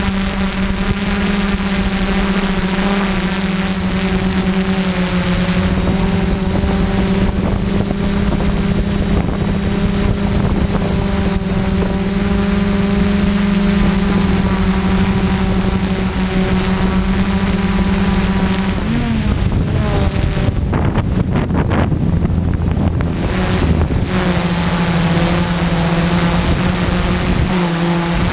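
DJI Flame Wheel F550 hexacopter's electric motors and 10-inch propellers humming steadily in flight. The hum is picked up by the GoPro on board. About two-thirds of the way through, the pitch wavers and for a few seconds the hum gives way to a rougher rushing noise, then returns.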